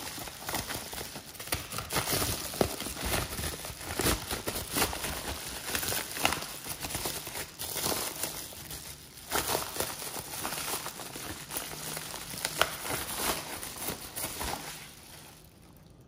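Bubble wrap being pulled off by hand: continuous crinkling with many small crackles. It dies down about a second before the end.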